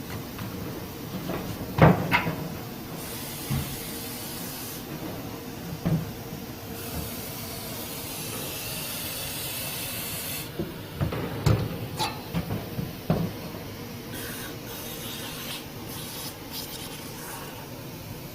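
Workshop repair noises: scattered sharp knocks and clanks, with two bursts of high hissing, one of about two seconds and a longer one of about four seconds in the middle. A faint steady hum runs underneath.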